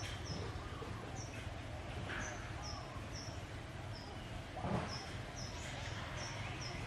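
A small bird chirping over and over, short high falling chirps about two a second, over a steady low background noise. A brief knock just before five seconds in is the loudest moment.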